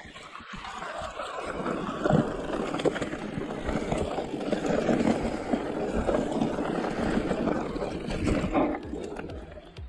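Riding noise of a Giant Reign E+ electric mountain bike on a dirt trail: tyres rolling over earth and leaves, with the bike knocking and rattling over bumps. The noise dies down near the end.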